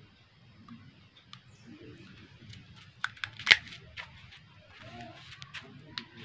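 A crab's shell being cracked and pulled apart by hand over a steel bowl: a run of sharp clicks and snaps starting about halfway through, the loudest a little after they begin, with a few more near the end.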